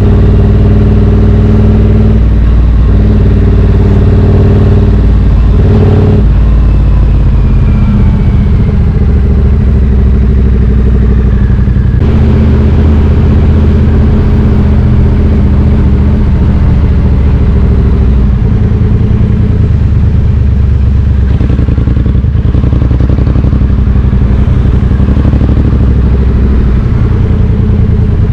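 Triumph Street Twin 900's parallel-twin engine running under way through British Customs slash-cut exhaust tips. The engine speed changes a few times, with clear shifts in its pitch about a third of the way in and again near the middle.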